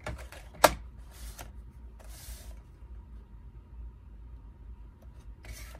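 A paper cutter chopping through card: one sharp snap of the blade coming down about half a second in, followed by a couple of brief soft rustles as the cut piece is handled.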